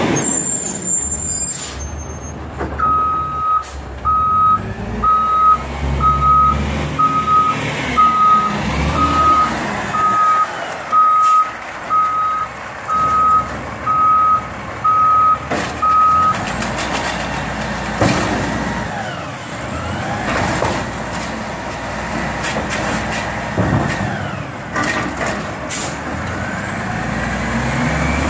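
Garbage truck's engine running while its backup alarm beeps about once a second, on one pitch, for roughly thirteen seconds as it reverses, with a brief hiss of air near the start. After the beeping stops the engine runs on alone as the truck moves forward.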